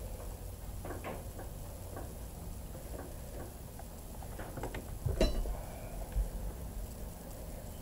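A few light, scattered clicks and taps from a hand working at the intake manifold bolts of a Kubota tractor's diesel engine; the sharpest comes about five seconds in.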